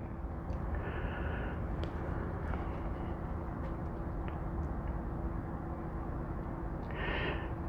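Steady low background rumble with a faint steady hum and a few light clicks.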